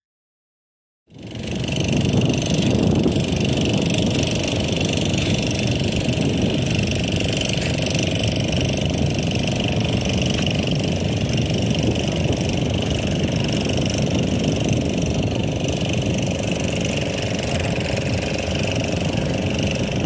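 A steady engine drone, like a motor idling, starts about a second in after a moment of silence and holds an even level.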